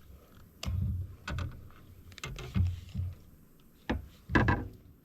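Irregular knocks and bumps against a kayak hull, with a few sharp clicks, as a freshly caught bass and gear are handled in the boat; the loudest knock comes about four and a half seconds in.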